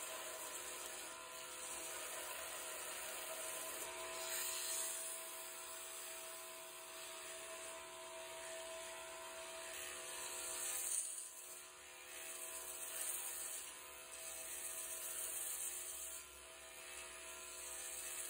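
Belt grinder running steadily with a wooden knife handle pressed against the sanding belt while its profile is ground. The sanding hiss swells and eases several times as the handle is worked against the belt.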